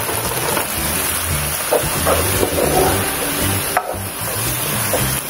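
Spaghetti frying in a coated wok, a steady sizzle, while a wooden spatula stirs and tosses the noodles with brief scrapes against the pan.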